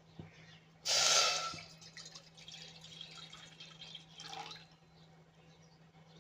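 Water splashing and dripping: a sudden loud splash about a second in, then smaller drips and trickles.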